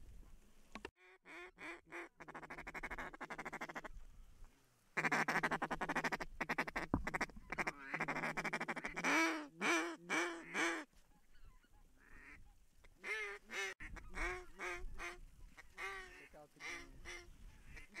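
Duck call blown by a hunter: a rapid buzzing chatter, loudest from about five seconds in, then strings of quacks.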